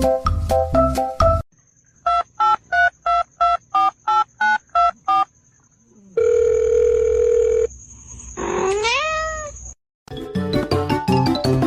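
A run of about eleven quick electronic beeps, then a steady tone about a second and a half long, then a short rising animal call. Background music stops before the beeps and comes back near the end.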